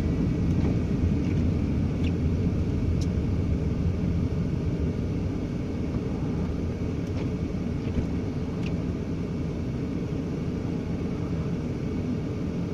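Steady low rumble of a vehicle driving on a snow-covered road, heard from inside the cab, with engine and tyre noise and a few faint ticks.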